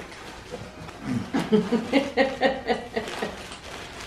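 A person chuckling softly: a run of short laughs starting about a second in and lasting about two seconds.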